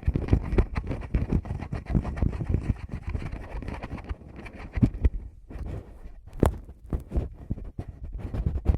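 Fingers tapping and rubbing directly on a Tascam recorder's microphones: many quick, close, bassy thumps mixed with soft scratchy brushing, with a few sharper taps in the second half.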